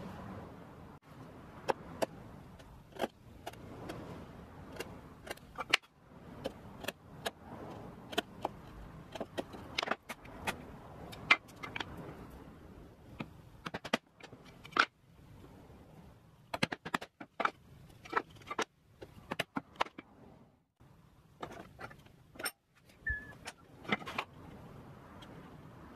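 Iroko boards being handled and set down on a wooden workbench: irregular sharp knocks, taps and clacks of wood on wood, several a second at times.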